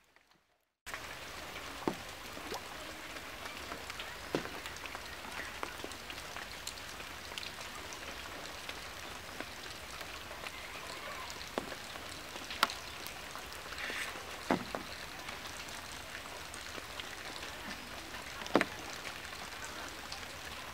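A steady patter-like hiss of water, like light rain, starting abruptly about a second in, with many small taps and about six louder sharp knocks as the cast net is handled against the wooden boat.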